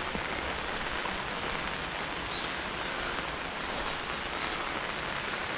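Steady rain falling, an even hiss that does not break or change.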